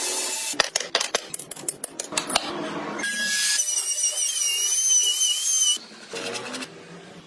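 Quick scraping strokes of a tool on wood, then a small high-speed rotary carving tool whining for about two seconds, its pitch wavering as it cuts.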